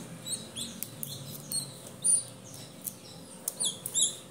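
Newly hatching chick peeping from inside its partly broken shell: a rapid series of short, high peeps, each falling in pitch. Faint small clicks of the shell being picked away with a pointed tool come between the peeps.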